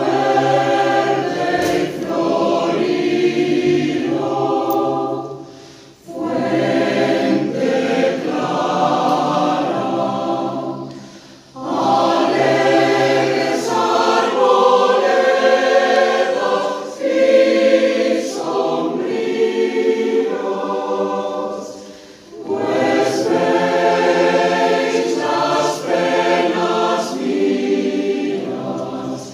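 Mixed choir of men's and women's voices singing, in long phrases broken by three brief pauses for breath.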